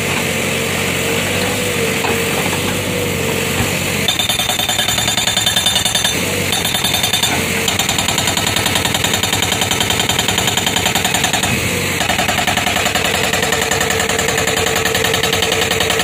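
ACE 80S hydraulic rock breaker on a Case backhoe loader hammering rock with rapid, evenly repeated blows, starting about four seconds in and pausing briefly a few times. Before it starts, only the backhoe's engine running is heard.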